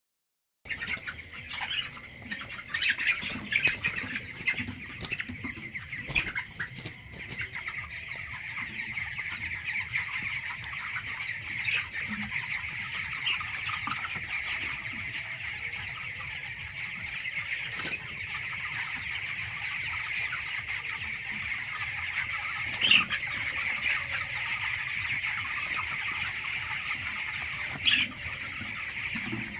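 A flock of poultry-farm chickens calling in a dense, steady chorus, with a few sharp clicks now and then.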